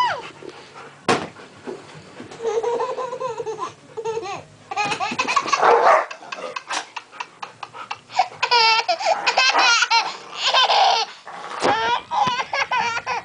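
Baby giggling and laughing in repeated bursts, most busily about eight to eleven seconds in. A single sharp knock sounds about a second in.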